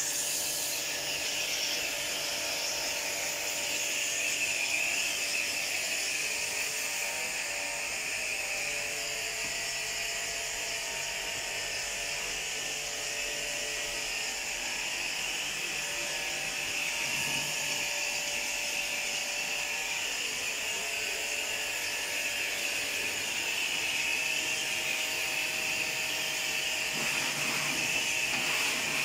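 Small electric pressure washer running steadily, its motor and pump humming under the hiss of the water jet sprayed onto the air conditioner's plastic panels and the wet concrete floor.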